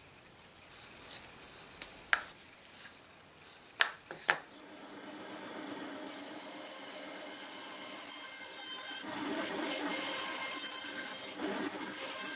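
Three sharp knocks in the first half, then a band saw running and cutting a small wooden block. Its steady whirr gets louder about nine seconds in as the blade works through the wood.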